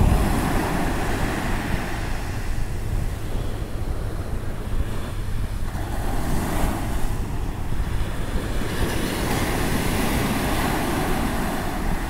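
Ocean surf: small waves breaking and washing up a sandy beach, the wash swelling a couple of times, with wind rumbling on the microphone.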